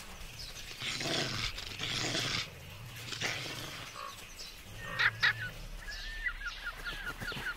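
Wolves snarling and growling over a carcass in pulsing bursts, followed by a bird calling in a rapid series of short chirps in the second half.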